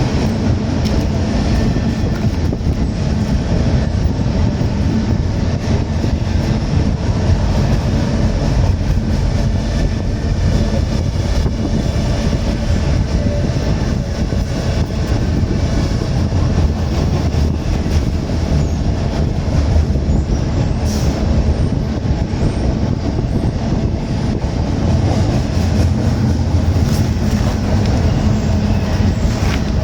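Freight trains rolling past: the steady rumble of the cars and their wheels on the rails.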